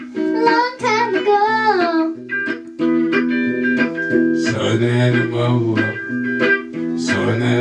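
A song played on electric guitar with singing: a girl sings a line for the first two seconds, the guitar carries on alone for a couple of seconds, and from about halfway through a man's lower voice sings over it.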